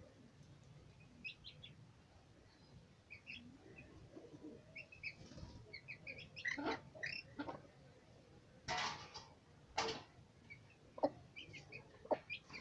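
Chicks peeping in short, high chirps, thickest in the middle. About nine and ten seconds in come two louder rustling bursts of wings flapping in the dust, followed by a few sharp taps near the end.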